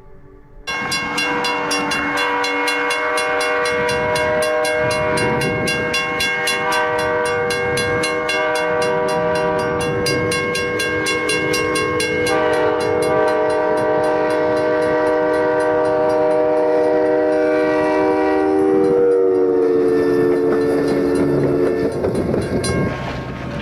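Train's multi-tone air horn held in one long blast over a train running through snow, its chord shifting partway and dropping in pitch near the end as the train passes, then cutting off. A fast, even ticking runs under the horn.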